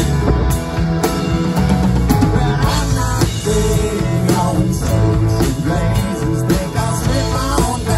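Live rock band playing a song with electric guitars, electric bass, drum kit and keyboard, the drums keeping a steady beat.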